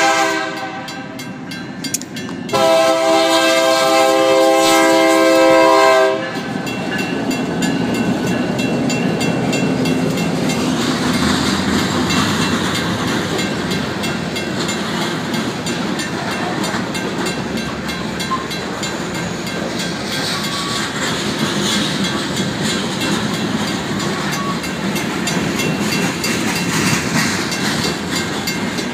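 Diesel locomotive horn sounding at the crossing: one blast fades out about two seconds in, then a louder, longer blast runs to about six seconds. After that the empty freight train of covered hopper cars rolls past with steady wheel rumble and clatter over the rails. The crossing signal's mechanical bell rings steadily throughout.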